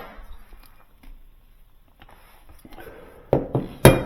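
Quiet handling noise as hinge hardware on a refrigerator door is worked on, then two sharp knocks about half a second apart near the end.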